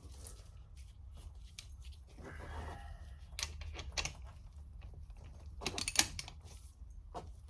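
Metal clicks and rattles from handling a Wheeler-Rex copper crimp shutoff tool, its ratcheting handle and socket, with a sharper cluster of clicks about six seconds in.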